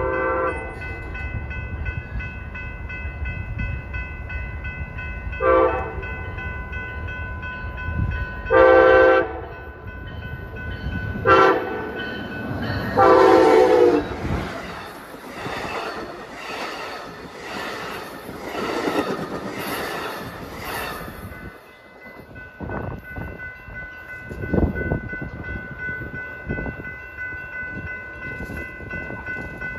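A train's air horn sounds five blasts of varying length, the last the longest. The train then passes close by with loud rumble and clatter from its wheels and cars, which ends abruptly about twenty seconds in.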